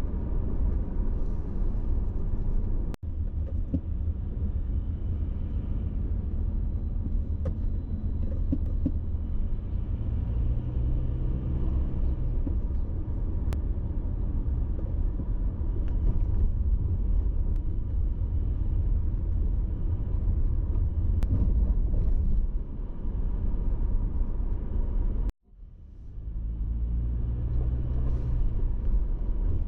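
Car driving on city streets, heard from inside the cabin: a steady low rumble of engine and tyre noise, with the engine note rising a few times as the car pulls away. The sound drops out briefly twice, the second time for about half a second near the end.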